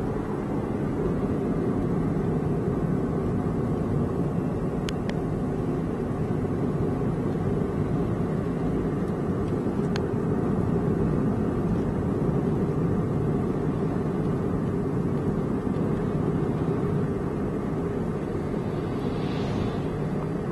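Steady road and engine noise heard inside a moving car's cabin, a low even rumble, with a couple of faint ticks.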